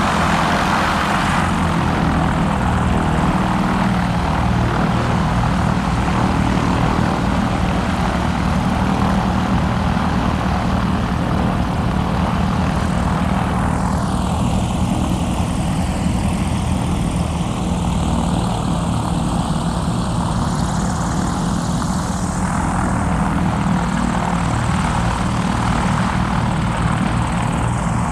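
Blimp's propeller engines running with a steady drone and a fast, even pulse. About halfway through, the sound takes on a slow swooshing sweep, first falling and then rising, as the airship passes.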